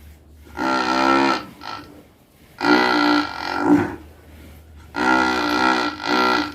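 A large cow snoring in its sleep: a longer pitched snore and then a short one, repeating with each breath about every two seconds.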